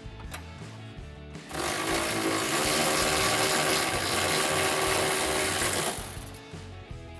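Impact wrench with an 18 mm socket running for about four and a half seconds, starting about a second and a half in, to loosen a front bumper bracket bolt.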